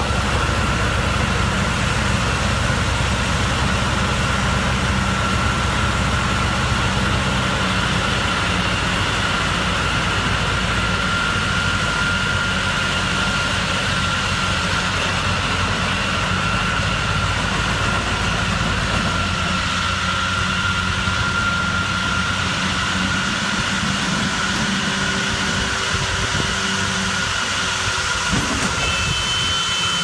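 Small farm tractor's diesel engine running steadily while it pulls a mini round baler through cut grass, with a steady high whine alongside. The engine grows fainter about ten seconds in as the tractor moves away.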